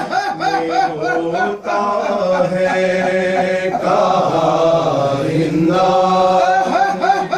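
Two men chanting a noha, a Shia lament of mourning for Muharram, in Urdu, with unaccompanied voices in a repeating melodic line.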